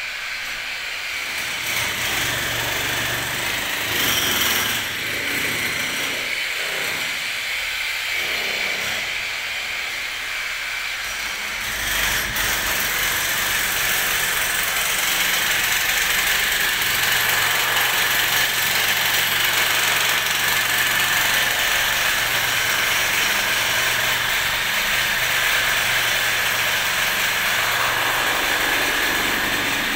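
A steady motor running with a continuous hiss. About twelve seconds in it jumps briefly, then settles a little louder and steadier.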